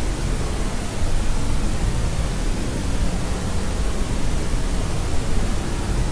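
Steady white noise played for sleep: an even, unchanging hiss with its weight in the low end, like a deep rush.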